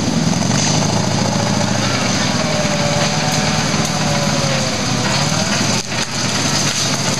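Engine of an off-road trials 4x4 running and revving under load as it is driven over a muddy woodland slope; its pitch rises and falls with the throttle, and the sound dips briefly about six seconds in.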